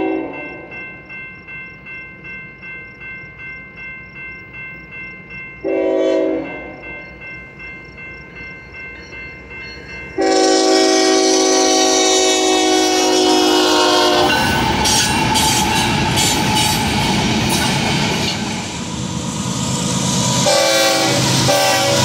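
Grade-crossing bell ringing in steady pulses, then a locomotive's multi-tone air horn: a short blast about six seconds in and a long blast from about ten seconds. A train then passes loudly with wheel and rail noise, and two short horn blasts come near the end.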